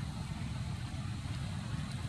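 Steady low rumble with a fainter hiss: continuous outdoor background noise, with no distinct calls or knocks.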